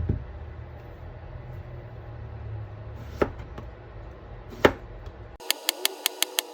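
A low hum with a thump and two sharp clicks, then quick, even knife chops on a cutting board, roughly six a second, starting suddenly near the end.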